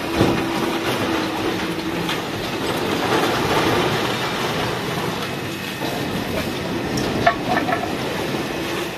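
Scrap-handling crane lifting and tipping a steel container of smouldering scrap, with heavy metallic scraping, clanking and rumbling. A steady tone fades out about two seconds in, and a few sharp metal clanks ring out about seven seconds in, over the hiss of a fire hose jet.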